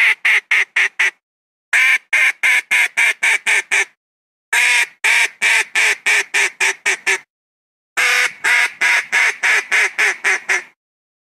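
Wild duck quacking in runs of about eight to ten quacks, each run opening with a longer quack followed by shorter, quicker ones at about four a second, with brief pauses between runs. It is a duck call used to bring wild ducks down.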